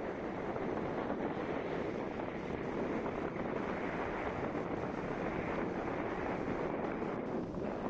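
Steady wind rushing over the microphone with the even road and engine noise of a motorcycle under way at low speed.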